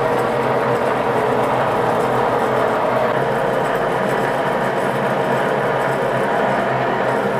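1A616 lathe running under load as a large twist drill bores into the spinning workpiece: a steady machine hum with a few held tones, mixed with the noise of the cut.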